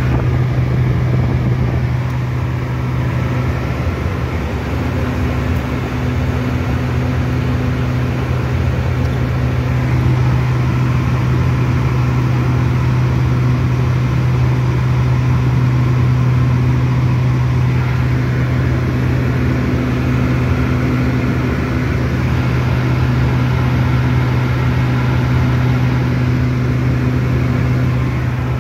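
Twin turboprop engines and propellers of a King Air F90 running steadily in flight, heard from inside the cockpit as a loud, even hum with a deep steady tone.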